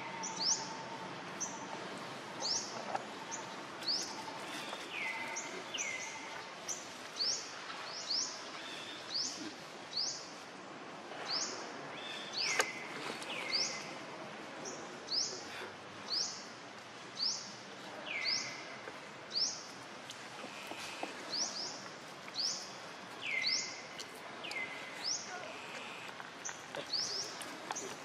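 Bird calling over and over, each call a quick high note sweeping sharply downward, about one a second, over steady outdoor background noise.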